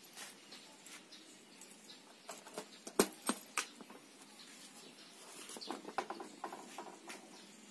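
Faint, scattered light clicks and taps, with a few sharper knocks about three seconds in.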